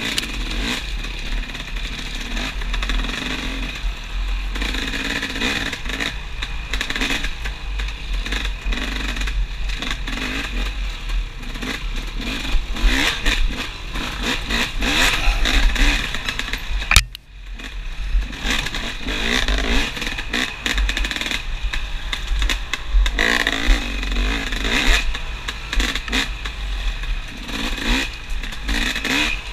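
Off-road dirt bike engine heard from the rider's helmet, revving up and down as it is ridden over a rough forest trail, with clatter and scraping from the bike and brush. A little past the middle there is a sharp click and the sound dips for a moment before the engine comes back.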